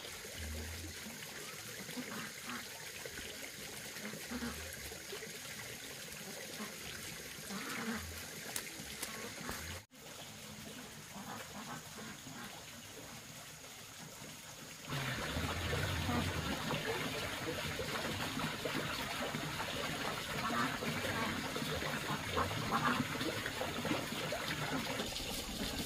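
Water trickling and splashing steadily, with scattered low knocks; it cuts out briefly about ten seconds in and runs louder and fuller from about fifteen seconds in.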